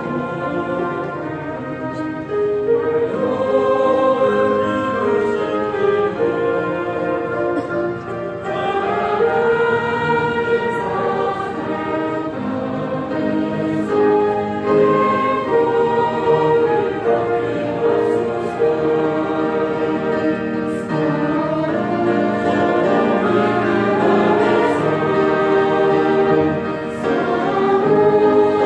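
Choir singing a hymn in held chords with instrumental accompaniment.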